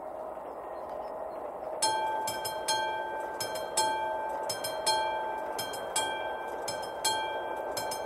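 Level-crossing warning bell of an AŽD 71 crossing signal starting to ring about two seconds in, a repeated ringing strike about once a second with lighter strikes between, signalling that a train is approaching. Before it starts there is only a rising background hiss.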